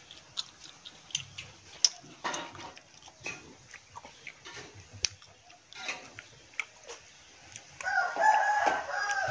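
A rooster crowing once, a held call about a second and a half long near the end. Before it come scattered light clicks and knocks.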